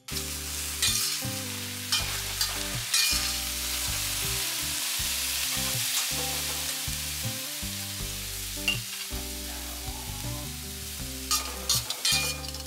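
Leek and Chinese sausage sizzling in a stainless steel wok while a metal ladle stirs them, scraping and clanking against the pan now and then, with a quick run of scrapes near the end.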